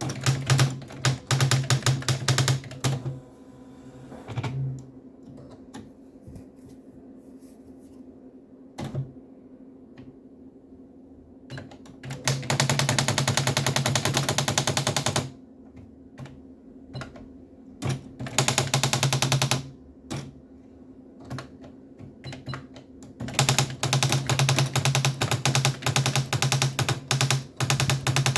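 Sharp PA-6000 electronic typewriter printing: fast, even runs of rapid strikes over a low motor hum, broken by pauses with only single clicks. The longest run starts about two-thirds of the way in and carries on to the end.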